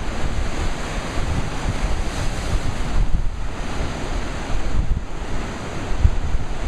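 Pacific surf surging and foaming through channels in dark shoreline rock, a steady rushing wash of breaking water, with wind buffeting the microphone.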